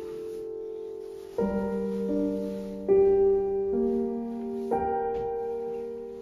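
Background music: slow, gentle piano, with notes struck about once a second and left to ring.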